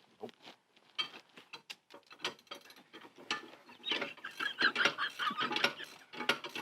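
Metal hand tools clinking, then a socket ratchet clicking in quick runs from about halfway through.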